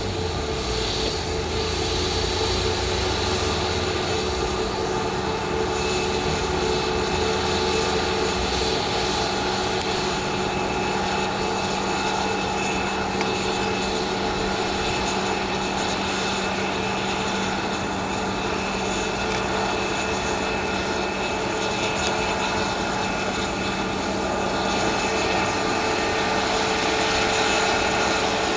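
Airbus A321neo's jet engines running at taxi power as the airliner rolls along the ground, a steady whine with several held tones over a rushing noise. A low rumble underneath fades out about eight seconds in.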